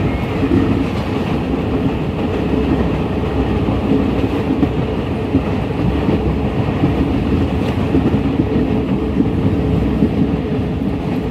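Passenger train running along the track, heard from inside a carriage: a loud, steady noise of wheels and coach with a faint steady hum.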